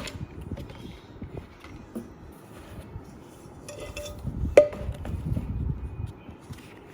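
Cookware being handled: light knocks and rustling, then one sharp metallic clink that rings briefly about four and a half seconds in.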